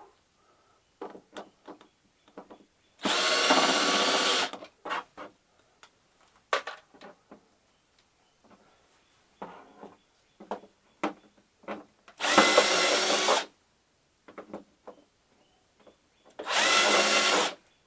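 Power drill-driver running in three short bursts, each about a second and a half, driving screws out of a flat screen TV's casing, with small clicks and handling of parts between the runs.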